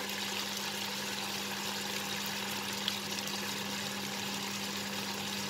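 Bacon, asparagus and carrot sizzling steadily in a frying pan, with a constant low hum underneath.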